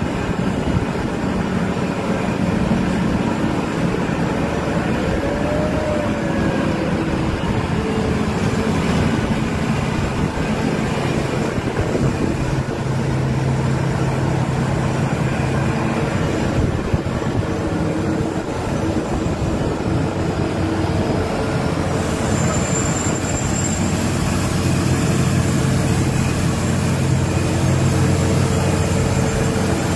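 Heavy diesel machinery on the working vessels running steadily, a constant low hum that grows stronger about twelve seconds in.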